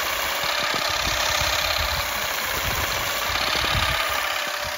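Derentürk battery-powered olive harvester running steadily, its powered head beating through olive branches to shake the olives down.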